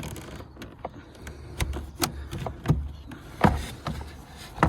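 Sharp plastic clicks and knocks, about five spread over a few seconds, as a car door's manual window winder handle is pried at to release its latches.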